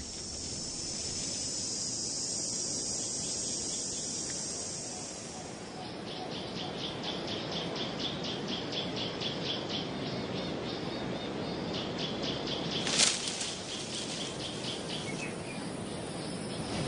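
Natural wildlife ambience with insects: a steady high-pitched insect drone for the first six seconds, then a rhythmic high chirping a few times a second. One sharp snap comes about thirteen seconds in.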